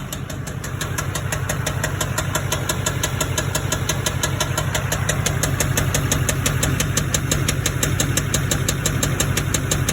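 LBZ Duramax 6.6-litre V8 turbo-diesel running with a rapid, even knock: rod knock from a spun connecting-rod bearing on the crank, damage the owner puts partly down to gasoline in the diesel.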